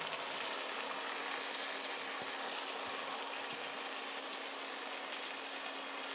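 Stir-fried vegetables and chicken meatballs sizzling in a pan: a steady, even hiss, with a faint steady hum underneath.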